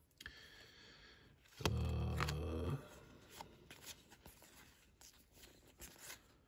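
Trading cards being flipped through by hand, with soft clicks and rustle as cards slide off the stack. About a second and a half in, a low hum lasts about a second and is the loudest sound.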